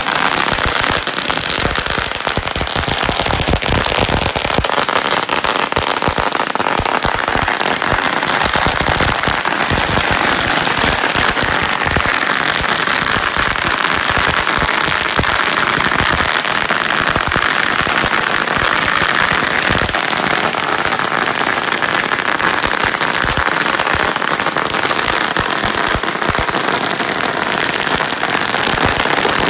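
Strings of firecrackers exploding in a dense, unbroken rattle of rapid bangs, loud and without pause.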